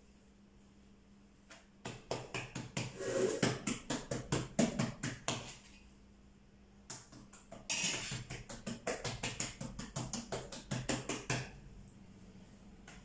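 A utensil beating quickly in a metal bowl, clinking against its sides at about six strokes a second, in two runs with a pause between them.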